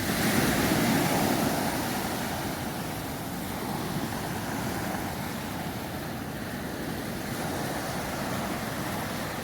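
Small waves washing onto a sandy beach, the surf kept gentle by an offshore reef, with a louder surge in the first second or two, and wind on the microphone.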